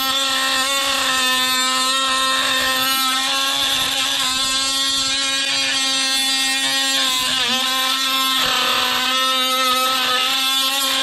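Dewalt DCS356 brushless oscillating multi-tool running steadily with an aftermarket Chinese-made blade pressed against a hardened grade 8 steel bolt, with a brief dip in pitch about two-thirds of the way through. The blade is barely cutting the bolt, only heating it.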